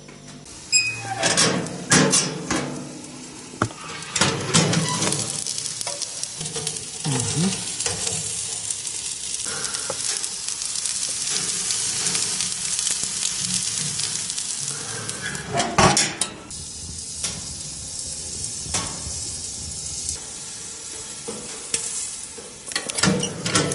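Meat on skewers sizzling on a metal tray in a hot oven box, a steady hissing sizzle. Sharp metal knocks and clatters in the first few seconds, a loud knock about sixteen seconds in and a few more near the end.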